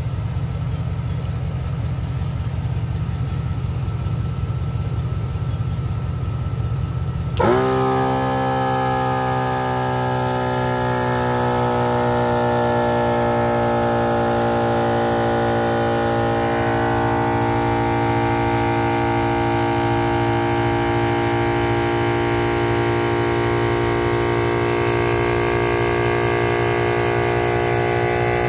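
A low steady hum, then about seven seconds in a MaxiTrac 12-volt air compressor (300 L/min, 10.6 CFM) starts up suddenly and runs steadily, pumping an empty 2-gallon air tank up toward 120 psi. Its pitch sags a little over the first few seconds, then holds.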